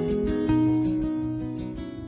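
Background music of plucked acoustic guitar, a chord struck about half a second in and left ringing, slowly fading.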